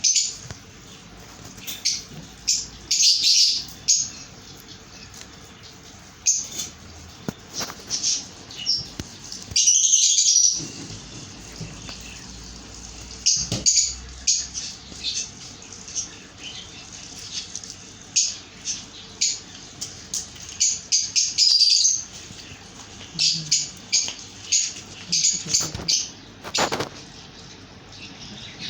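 Baby budgies chirping: many short high-pitched chirps in quick clusters, typical begging calls at feeding, with a longer call about ten seconds in.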